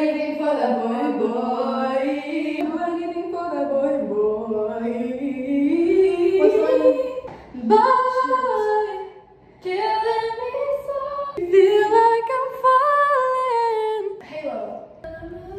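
Teenage girls singing a melody a cappella, in long held notes that glide up and down, with a brief breath pause about nine and a half seconds in.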